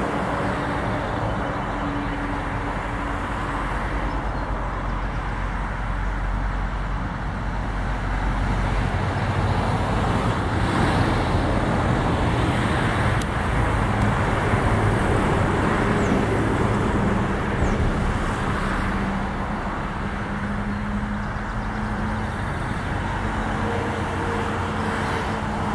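Steady road traffic noise: a continuous low rumble of passing cars with faint engine hum.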